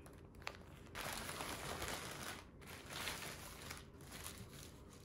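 Thin white wrapping paper rustling and crinkling as a package is unwrapped by hand, starting about a second in, with a short break in the middle. A single small click comes just before the rustling.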